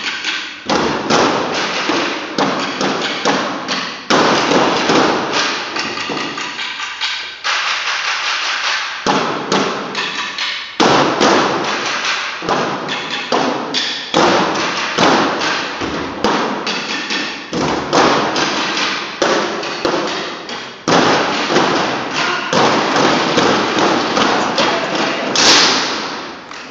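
Broomsticks struck against a wooden stage floor by a group in unison, beating out fast rhythmic patterns with brief pauses between phrases. The hits echo in the hall, and a last loud stroke comes near the end.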